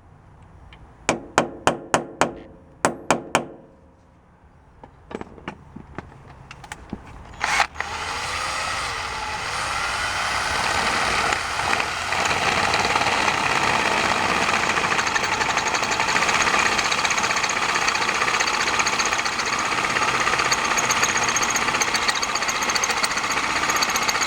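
About nine sharp hammer taps in two quick runs, driving a steel filler dowel plug back into a drilled-out bolt hole, then a few lighter taps. About seven seconds in, a power drill starts and runs steadily, boring the hole out with a 5/16-inch bit.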